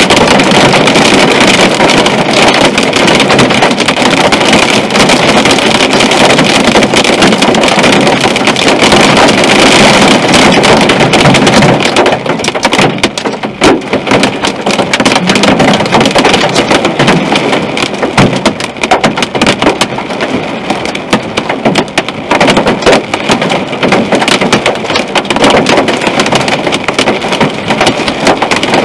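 Heavy rain drumming on a moving car, mixed with road and wind noise. The patter is dense and steady at first, then turns more uneven and patchy after about twelve seconds.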